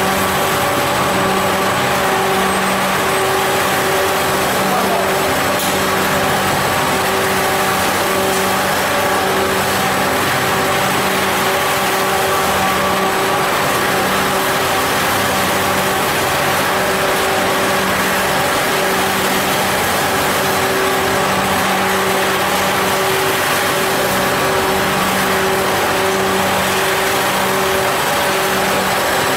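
Caramel popcorn coating kettle running: a steady mechanical hum with a constant low tone.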